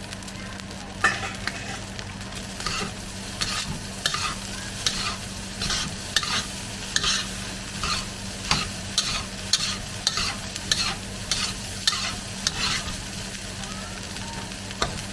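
Garlic egg fried rice sizzling in a hot pan while a spatula scrapes and tosses it, about two strokes a second, the strokes stopping a couple of seconds before the end.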